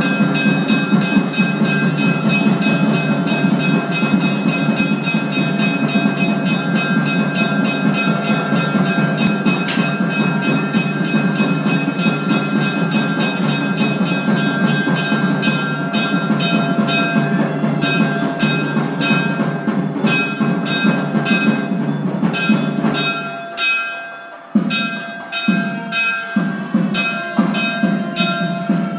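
Temple bells rung rapidly and without pause for the puja, about three strikes a second, their ringing tones overlapping. A dense low sound runs under the bells and stops about 23 seconds in, leaving the bell strikes alone.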